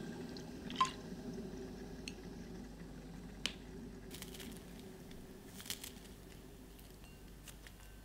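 A ringing clink on a ceramic bowl about a second in, then a few light taps and clicks of a spoon stirring soy sauce in the bowl, and near the end faint crisp snips of kitchen scissors cutting chives. A low steady hum runs underneath.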